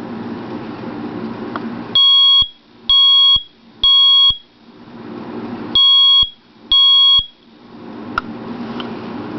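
First Alert smoke alarm's piezo horn sounding its test alarm: three loud, high-pitched beeps of about half a second each, a pause, then two more. A steady background noise fills the gaps before and after, with a small click near the end.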